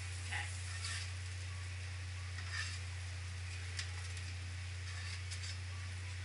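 Green tomatoes and zucchini frying in a skillet on a Coleman camp stove: a steady sizzle, with a handful of short scrapes and clicks of a utensil turning food in the pan, over a steady low hum.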